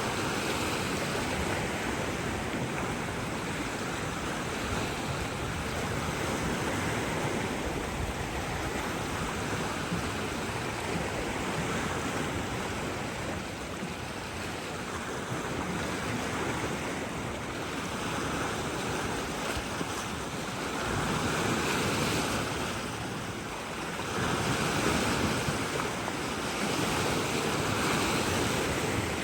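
Waves washing onto a shore in a steady rush, swelling louder twice near the end.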